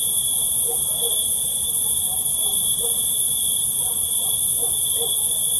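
Crickets chirping in a steady, unbroken high-pitched chorus, with a second steady insect whine at a lower pitch beneath it.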